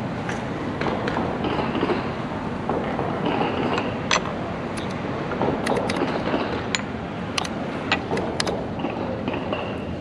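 Plastic chess pieces being set down on a vinyl board and the buttons of a digital chess clock being hit in quick blitz play: a run of sharp clicks and taps, bunched mostly in the middle and latter part, over steady outdoor background noise.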